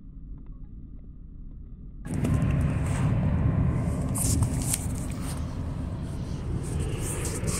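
Approaching diesel freight train: a faint low rumble that jumps abruptly much louder about two seconds in, then a steady loud rumble with hiss.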